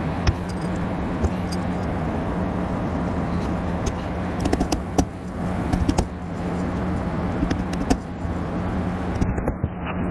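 Scattered sharp clicks and knocks as metal C-clips are pushed and tapped with a small hammer onto the steel rails of a car seat frame, a cluster of them about halfway through. A steady background hum underlies them.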